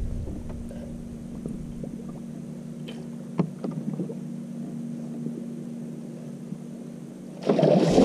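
Steady low hum of a boat motor with a few light knocks, then, near the end, a hooked musky thrashing at the side of the boat: a sudden, loud splashing of water.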